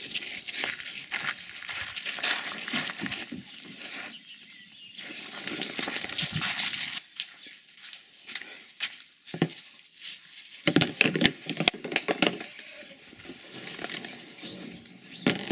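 Irregular rustling and scuffing of straw being handled and spread on a barn floor, with scattered knocks and clicks.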